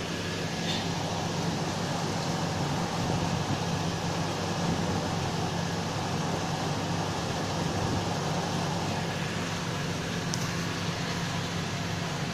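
Steady mechanical hum with a hiss over it, like a fan or distant traffic, holding an even level, with one faint click about ten seconds in.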